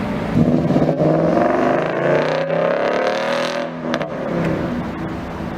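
Sports car engine accelerating hard, its note climbing for about two seconds, then easing off and fading.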